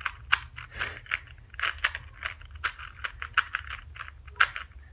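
Plastic 3x3 Rubik's cube being turned in the hands, its layers clicking and clacking in an irregular run of sharp clicks, several a second.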